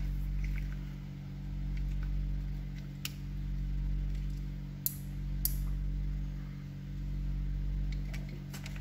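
A steady low hum, with three small sharp clicks about three, five and five and a half seconds in as the opened handheld radio is handled.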